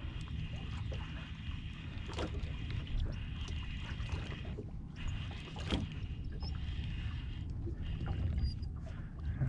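Low wind and water rumble around a small boat, with the faint steady whir of a fishing reel being cranked as a fish is fought on the rod. The whir stops briefly about five and again about eight seconds in, and there are a few light clicks.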